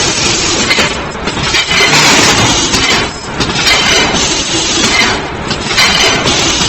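Automatic mesh bag cutting and sewing machine running, a loud mechanical clatter that swells at an uneven beat about every second or so as it works through its cycle.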